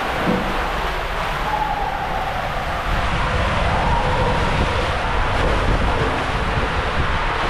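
Steady rush of water and a rider sliding down the inside of an enclosed tube water slide, growing a little louder about three seconds in.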